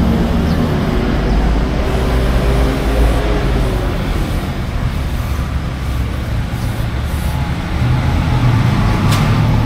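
Road traffic: motor vehicle engines running close by, a steady low rumble.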